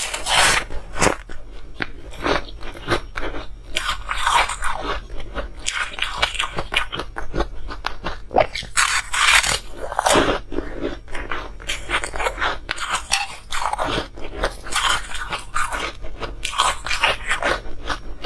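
Ice being bitten and chewed, close to the microphone: dense, irregular sharp crunches and cracks in quick succession as a pink-tinted block of ice is bitten off and ground between the teeth.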